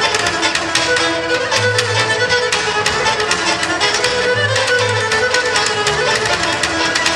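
Bulgarian folk trio playing a rachenitsa, a dance in seven-beat time: a gadulka bowing the melody over a strummed tambura and a plucked double bass keeping the rhythm.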